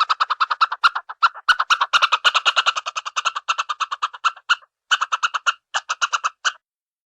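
Cartoon squirrel chattering sound effect: a fast, even run of short high pulses, about ten a second, with a few brief breaks, stopping shortly before the end.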